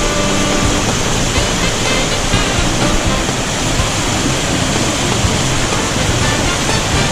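Mountain stream cascading over rocks and small waterfalls: a loud, steady rush of water, with faint background music over it.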